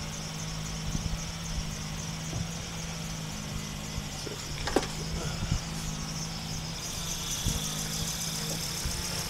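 Compressed-air engine of a model air boat running steadily, spinning its propeller with a steady hum and a hiss of escaping air. The hiss grows a little louder near the end.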